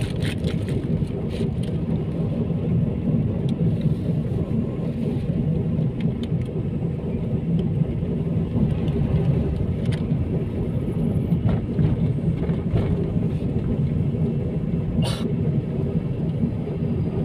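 Steady low rumble of a car's engine and tyres on the road, heard from inside the cabin while driving, with a few faint knocks.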